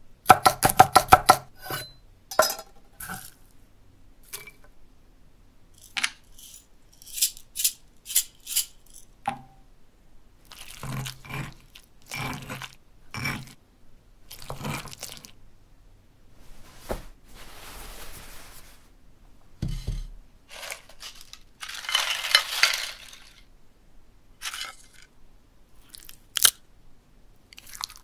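Kitchen-prep sound effects. A quick run of knife chops on a board opens, then come scattered taps and clicks and several stretches of scraping and mashing as the mixture is worked in a stone mortar bowl, the loudest about two thirds of the way through.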